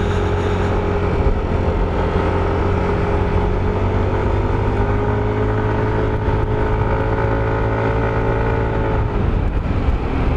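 Motorcycle engine running steadily while climbing a hill, with a few steady engine tones over a haze of road noise. The engine note drops off about nine seconds in as the bike slows.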